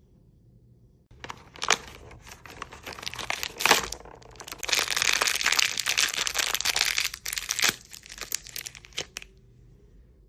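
Plastic blind-box packaging crinkling and being torn open by hand, a dense crackling with a few sharp snaps, loudest in the middle.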